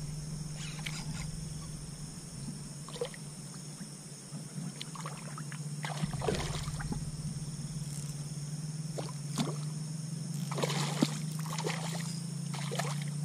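A hooked peacock bass thrashing and splashing at the water's surface during the fight. The splashes come in short bursts every second or two, with the heaviest about six and eleven seconds in.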